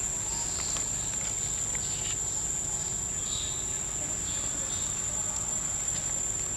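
Steady high-pitched drone of insects, holding one unbroken tone.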